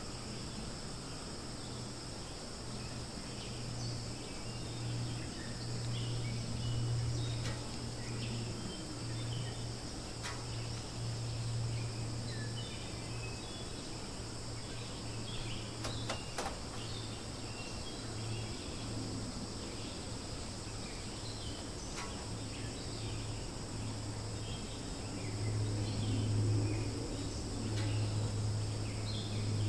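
Steady high-pitched insect chorus over a low continuous hum that swells and fades, with scattered faint chirps and a few sharp clicks.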